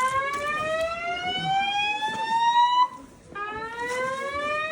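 Building fire alarm sounding its evacuation tone: a rising whoop that climbs in pitch for about three seconds, breaks off briefly, and starts climbing again.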